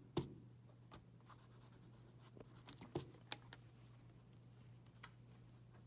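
Pencil sketching on paper in short, scattered strokes, with a faint steady low hum underneath.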